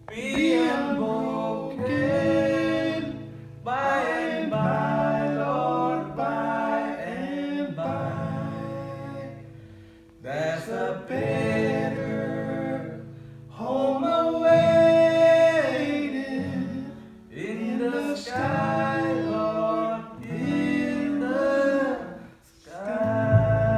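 Bluegrass band playing live: a man sings line after line over acoustic guitar, mandolin and upright bass, with short breaks between the sung phrases.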